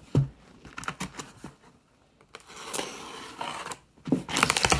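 Cardboard shipping box being handled and slit open with a razor blade: a bump just after the start, scattered scratching and scraping on the cardboard and tape, then a loud burst of rapid scraping near the end.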